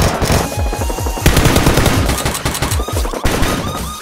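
Rapid automatic gunfire sound effects, a dense run of shots that gets louder about a second in, over background music.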